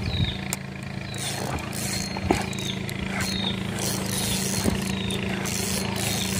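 A small engine running steadily at a low hum, with a short high falling chirp repeating about twice a second over it and a few light knocks.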